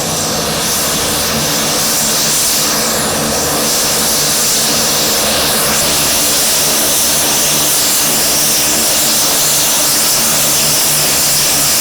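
The twin turboprop engines of a Dornier 228 maritime patrol aircraft running loudly and steadily, with a strong high hiss over a low engine drone.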